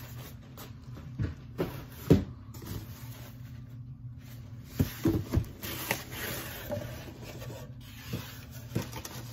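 A large cardboard advent calendar box being handled: cardboard rubbing and scraping, with several sharp knocks, the loudest about two seconds in and a quick run of three about five seconds in.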